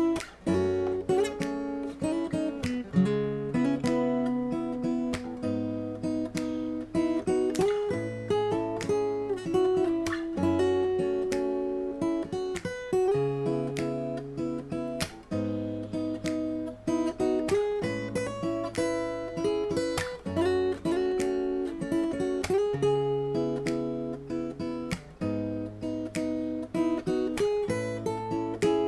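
Shelter Celtic 100 dreadnought acoustic guitar played solo, strumming chords with the bass note changing every two to three seconds.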